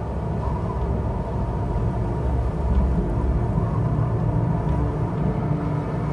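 Strong wind of an approaching storm, a steady low rumble.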